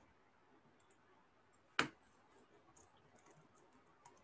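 Faint keystrokes on a computer keyboard as a short line of text is typed, with one louder, sharper click a little under two seconds in.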